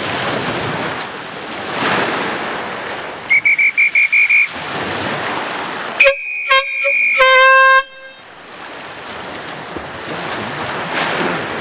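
Starting horn for a sea swim: a quick run of about six high beeps, then two short horn blasts and a longer one, signalling the swimmers to go. Surf and wind noise on the microphone run underneath.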